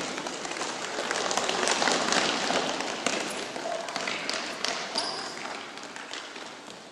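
Busy crowd noise of many voices with scattered taps and knocks, swelling to its loudest about two seconds in and then slowly fading.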